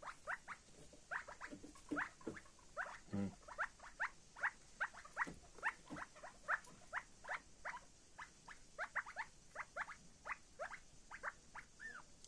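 Young chukar partridges, about five weeks old, peeping over and over in short high chirps, several a second, with one brief lower, buzzier call about three seconds in.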